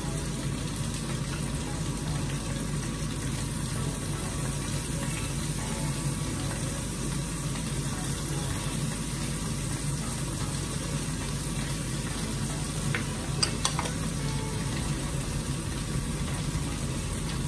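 Pomfret shallow-frying in hot oil in a frying pan, giving a steady, even sizzle. A couple of light clicks come about three-quarters of the way through.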